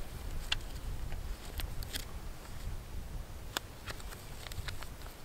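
Small scattered clicks and crisp rustles of a paper tag being handled and fastened to a shot wild turkey's leg, over a low steady rumble.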